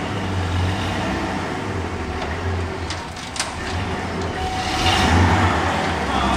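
Pickup truck engine running at low revs as the truck backs slowly, with a sharp knock about three seconds in and scraping a couple of seconds later as a heavy steel electrical cabinet shifts on the tailgate edge and the concrete floor.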